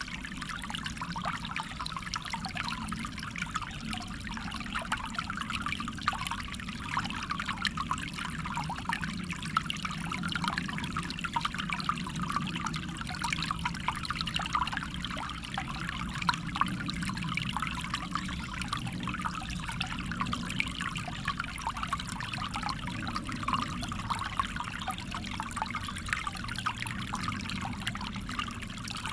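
A small stream running steadily over stones, a continuous trickling and babbling of water.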